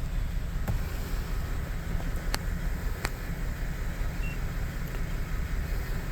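A 5.3-litre V8 in a GMC Sierra idling with a steady, uneven low rumble, quiet and without knocking, while misfiring on cylinder 1 because its collapsed valve lifters hold the valves shut. A few light clicks sound over it, the clearest about two and a half seconds in.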